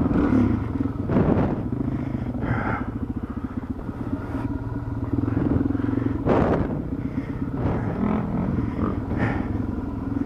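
Dual-sport motorcycle engine running at a steady pace on a muddy trail ride. A few short bursts of noise cut across it, the loudest about six seconds in.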